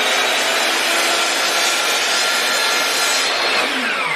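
Electric miter saw running and cutting through the end of a wooden branch to square it off flat for mounting. About three and a half seconds in, the motor winds down with a falling whine.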